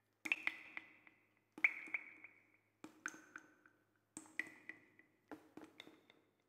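Five quiet clusters of sharp clicks and taps, a little over a second apart. Each cluster is led by a tap with a short ringing ping, and the pings fall at different pitches.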